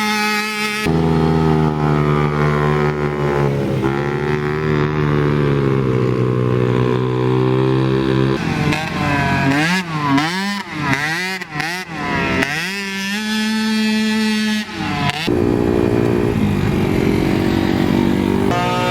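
Small youth racing ATV engines running at high, steady revs. Between about eight and twelve seconds in the revs rise and fall rapidly as the throttle is worked. The sound changes abruptly about a second in, past eight seconds and again near fifteen seconds.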